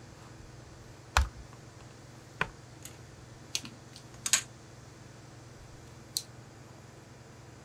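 A handful of sharp, unevenly spaced knocks and clacks as rulers are moved and set down on a tailor's cutting table. The loudest, about a second in, has a dull thump. A low steady hum runs underneath.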